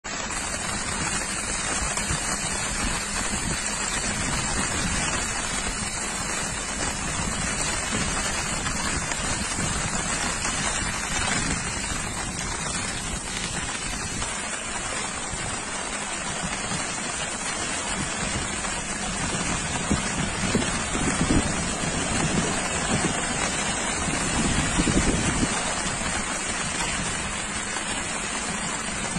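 Steady rushing noise of wind and water over flooded ground, with wind buffeting the microphone. It swells louder twice in the second half.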